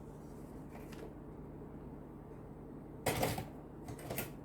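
Packaging and paper being handled during an unboxing: two brief rustles about three seconds in and near the end, over a low steady hum.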